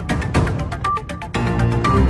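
News bulletin intro theme music with a steady beat and a short high note about once a second. The bass thins out briefly about a second in and comes back.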